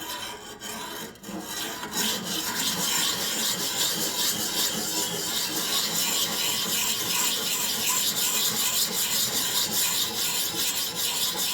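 Steel lawnmower blade being stroked back and forth over the fine side of an oiled sharpening stone, a steady rapid rasping. It is lighter for the first two seconds, then denser and louder.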